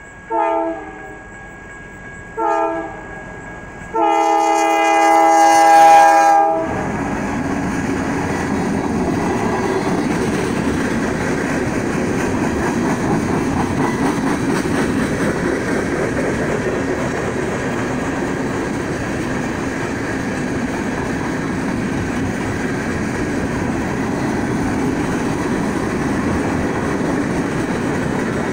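Freight locomotive horn sounding two short blasts and then a longer, louder one about four seconds in. The train then rumbles and clatters steadily past, a slow string of tank cars rolling over the crossing.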